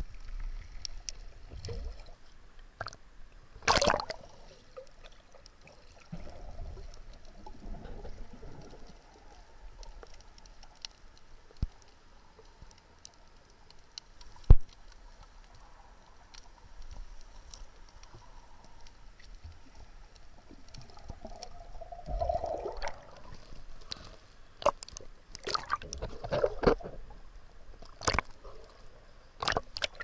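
Sea water heard from underwater on a camera's microphone: muffled sloshing and gurgling, with scattered sharp clicks and knocks, the sharpest about halfway through and several close together near the end.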